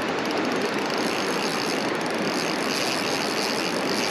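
Steady rush of flowing creek water running over a shallow riffle.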